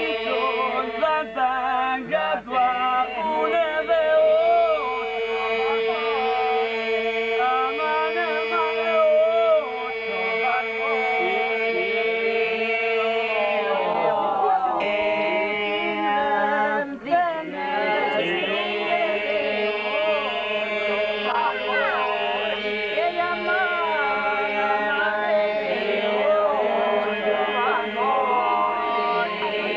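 Albanian iso-polyphonic folk singing by unaccompanied men's voices: a steady held drone under a lead voice that winds and ornaments above it. The drone breaks off briefly about halfway through, then comes back in under a new phrase.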